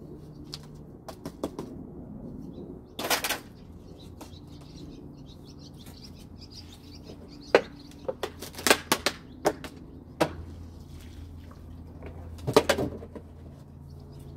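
Scattered sharp knocks and clicks, several in quick clusters, over a steady low hum, with faint bird calls and cooing.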